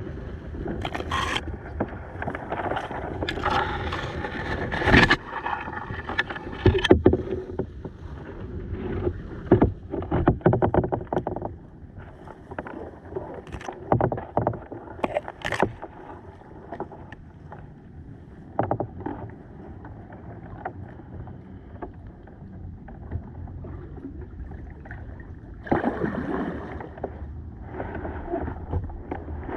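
Kayak being paddled on a river: irregular paddle splashes and knocks over a steady wash of water, busiest in the first half.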